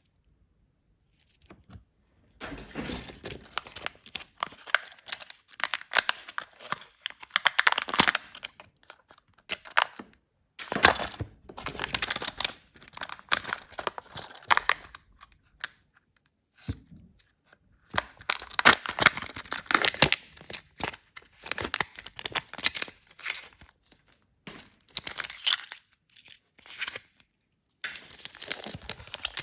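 Chocolate surprise-egg wrappers being torn open and crinkled by hand, in bursts of crackling with short pauses between.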